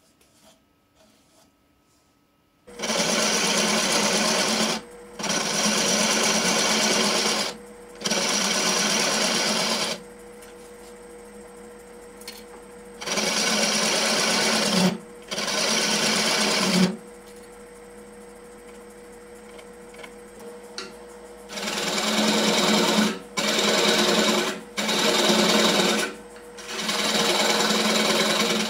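Oneway wood lathe starts up a few seconds in and runs with a steady hum. A turning tool cuts into the spinning wooden sphere through one of its openings in repeated loud bursts of one to two seconds each, with short pauses between.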